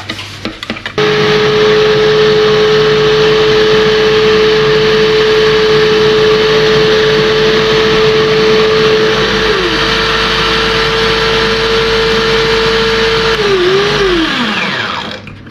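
Small electric food processor switched on about a second in, its motor running with a steady whine as it blends a thick curry paste, then winding down and stopping near the end.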